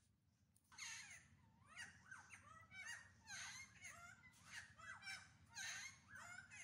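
Birds calling faintly: repeated sweeping calls about once a second, starting about a second in.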